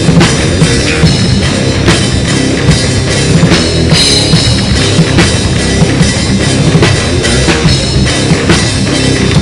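Rock band's practice recording playing loudly, with a drum kit keeping a steady beat over bass and guitar.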